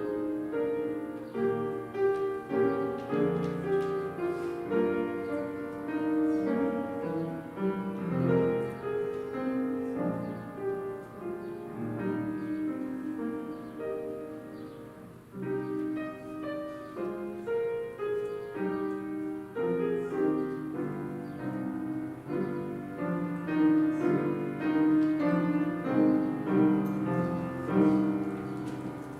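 Piano playing an instrumental piece of clear, separate notes and chords, with a brief softer moment about halfway through.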